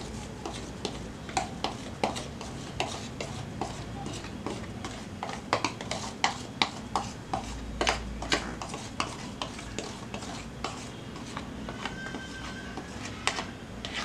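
Metal wire whisk scraping and tapping against a glass bowl as thick batter is scraped out into a container, giving irregular light clicks and scrapes.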